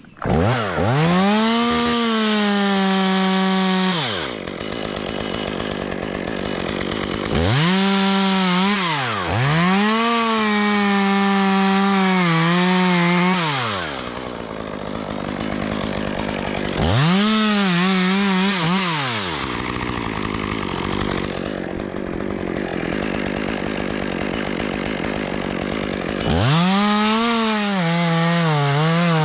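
Two-stroke chainsaw revved to full throttle in about five bursts, falling back to idle between them, as it cuts through a tree section. In the later bursts the engine note wavers and sags as the chain bites into the wood.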